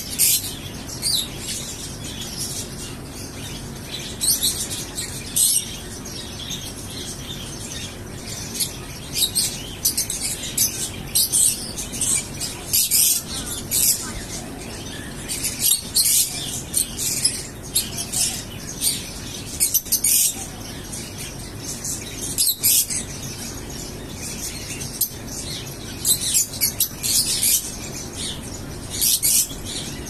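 A flock of lovebirds chattering: high, shrill chirps in quick, irregular clusters, over a steady low background hum.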